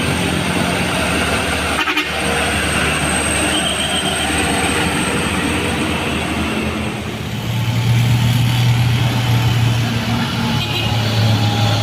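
Road traffic dominated by passing buses: steady engine and tyre noise, with a loud, low diesel engine hum of a bus coming close from about halfway.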